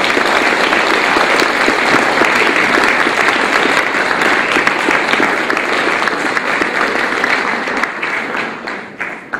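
Audience applauding, steady and then dying away near the end.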